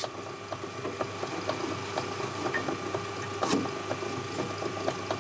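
Small metal lathe motor running steadily with a low hum, with light irregular clicks and taps of metal parts being handled and a louder knock about three and a half seconds in.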